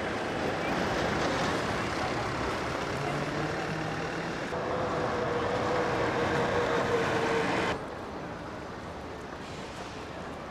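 Street traffic: motor vehicles passing on cobbles, then a city bus going by with a steady engine drone. About three-quarters through, the sound drops suddenly to quieter street noise.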